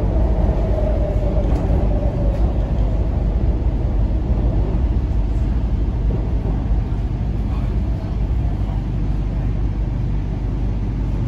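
MTR Kwun Tong Line C-train heard from inside the passenger car while running through a tunnel: a steady low rumble of wheels and traction gear. A wheel squeal fades out in the first couple of seconds.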